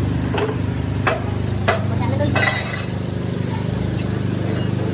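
Workshop machinery humming steadily, with a few sharp metallic clinks in the first two seconds as the steel breaker cylinder parts are handled, and a short rasping scrape about two and a half seconds in.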